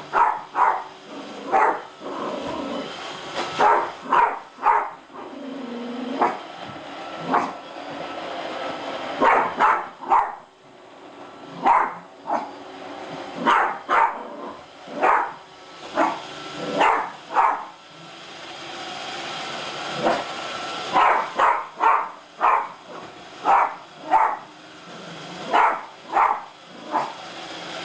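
A dog barking repeatedly in short, sharp barks about once a second, with a few pauses, at a running Roomba robot vacuum, alarm barking at a machine it takes for a suspicious intruder. The robot vacuum's motor and brushes hum steadily underneath.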